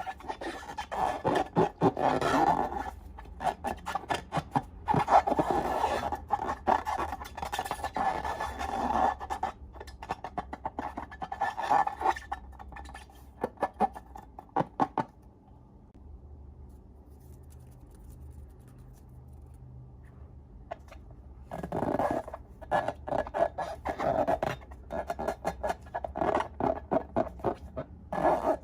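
Slime being squeezed and worked by hand, giving runs of sticky, crackling clicks in several bursts, with a lull of a few seconds in the middle.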